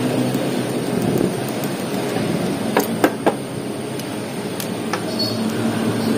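Several sharp plastic and metal clicks from an HP 85A toner cartridge being taken apart with a screwdriver, its parts knocking as they are handled, heard over a steady background rush with a low hum.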